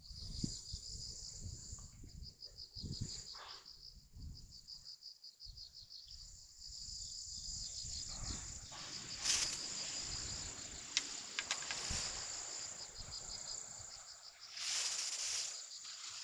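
Insects, crickets by their sound, chirping in a steady, rapidly pulsing high trill, over a low rumble of wind on the microphone. Louder rustling noise breaks in about halfway through and again near the end.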